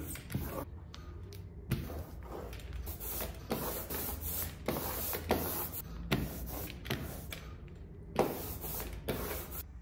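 Small hand brayer (rubber roller) being rolled back and forth through tacky printing ink on an inking plate, a string of irregular hissing strokes about one or two a second.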